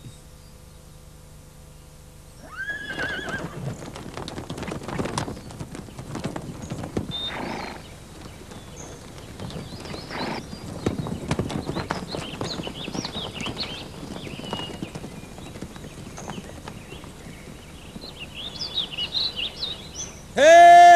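Horses galloping, with many hoofbeats, and a horse whinnying about two and a half seconds in as the hoofbeats start.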